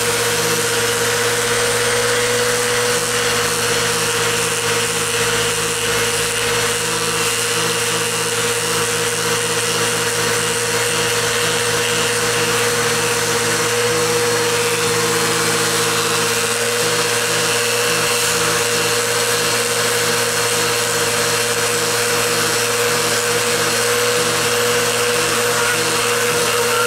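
Vacuum cleaner running steadily, drawing air through a Flowbee vacuum hair clipper as it is passed over the hair, its clipper blades driven by the suction. An even, unbroken hum with a strong single whine over a rush of air.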